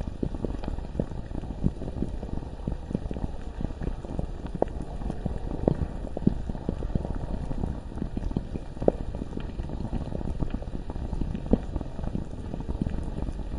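Bubbling lava: a low, continuous bubbling with dense small pops and a few louder pops now and then.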